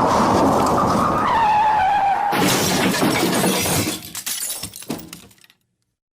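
Car crash sound effect: a screech that drops in pitch, then a sudden loud crash with glass shattering about two seconds in, followed by scattered clattering and tinkling debris that thins out and cuts off sharply.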